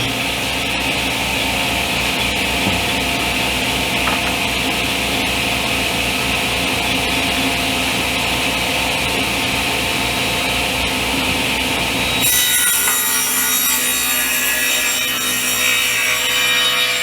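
Woodworking power tool running steadily and cutting wood. About twelve seconds in the sound changes abruptly to a brighter, hissier machine noise.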